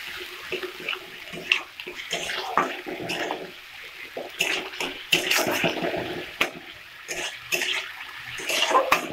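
Ground spice paste frying in mustard oil in a wok, sizzling as a metal spatula stirs and scrapes it against the pan in irregular strokes: the masala being kasha-fried.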